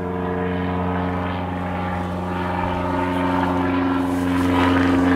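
Low-flying propeller airplane droning overhead, a steady engine drone that grows louder toward the end, like a bomber plane.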